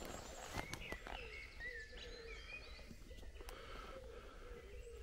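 Woodland songbirds singing, several short chirping and trilling phrases overlapping. A few footsteps snap twigs on the forest floor in the first second, with one more click a little past the middle.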